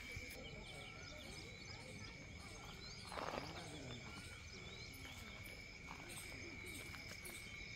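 Faint outdoor ambience with a steady high-pitched drone and a brief rustle about three seconds in.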